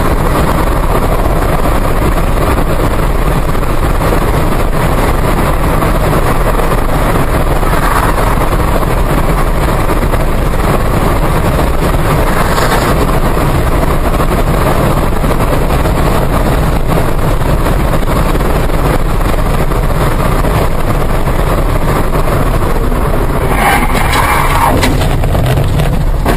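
Loud, steady road and wind noise of a car driving at highway speed, heard from inside the car. A brief louder sound comes near the end.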